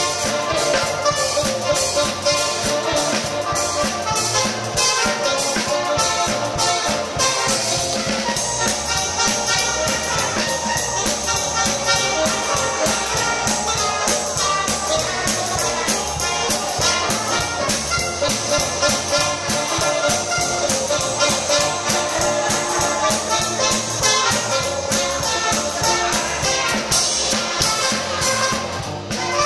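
Live dance band playing swing-style music with brass over a steady drum and cymbal beat.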